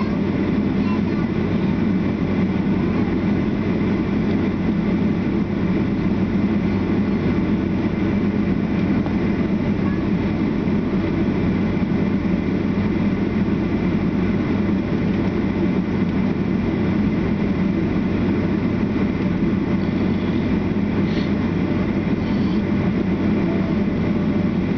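Steady engine drone heard inside the cabin of a Boeing 757-200 on the ground, with a low hum and no change in power.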